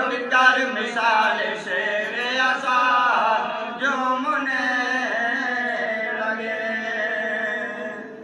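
A marsiya, a mournful Urdu elegy for Imam Hussain, chanted by men in long sustained melodic lines into a microphone; the chant fades out near the end.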